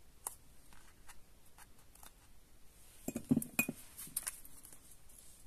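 Hands handling cardstock and pressing a glued panel onto a paper box card: scattered light taps and clicks, with a short cluster of knocks about three seconds in.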